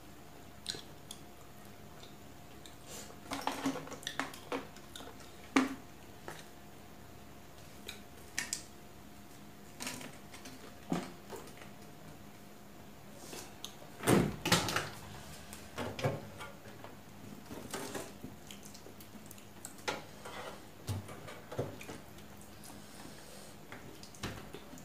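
A person eating rice and chicken curry by hand from a steel plate: close-up chewing and mouth sounds mixed with scattered small clicks and scrapes of fingers and food against the metal plate, with a louder burst about halfway through.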